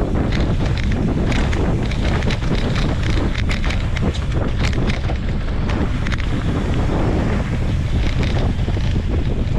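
Wind rushing hard over the microphone of a mountain bike speeding down a dirt singletrack, with knobby tyres rolling over dirt and rocks and frequent sharp clicks and rattles from the bike.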